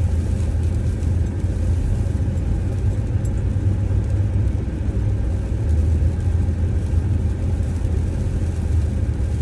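A Chevrolet Tahoe driving, with a steady low engine and road rumble.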